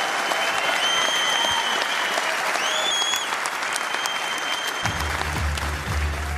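Large crowd applauding steadily, with a few high whistles rising over it in the first half. A deep low hum comes in under the applause near the end.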